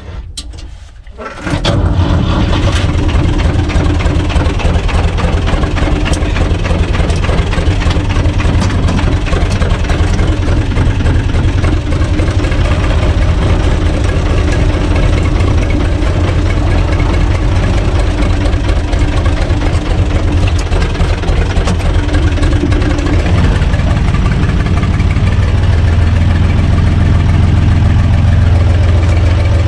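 Universal U445 DT tractor's diesel engine cranking briefly and catching about a second and a half in, then running steadily at idle, a little louder near the end.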